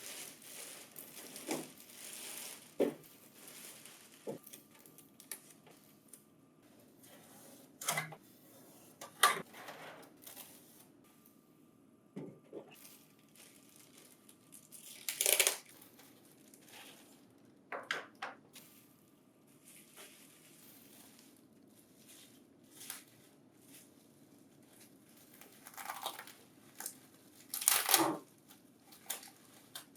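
Packing material being unwrapped and pulled off: plastic and tape crinkling and tearing in irregular bursts, with a few sharp knocks. The loudest tears come about halfway through and near the end.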